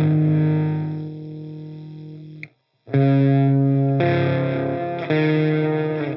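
Distorted electric guitar played through an Audio Disruption Devices Transformations fuzz pedal: a held chord fades and cuts off with a click, then after a short gap new fuzzy chords are struck three times, about a second apart.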